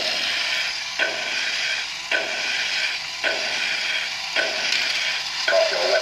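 Toy walking robot's electric motor and plastic gearbox whirring steadily as it walks, with a cycle that repeats about once a second. The gearbox runs with a newly fitted replacement inner gear that fits properly.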